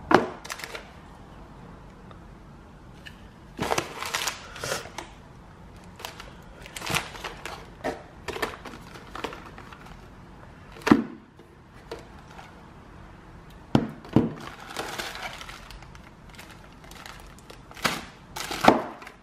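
Items being handled in a cardboard box: rustling of plastic packaging and wrappers, with several sharp knocks as cans and boxes bump against each other and the box.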